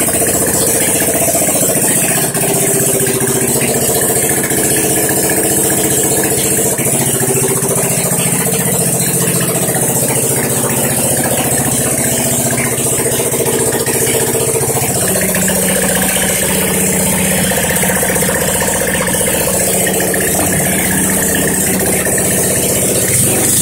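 Yerf Dog go-kart's engine idling steadily at close range, running well, with a slight change in its note about fifteen seconds in.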